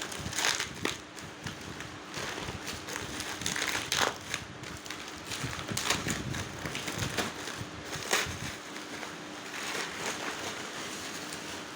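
Packaging being handled while the laptop is unpacked: irregular crinkling and crackling, with scattered sharp clicks that thin out in the second half.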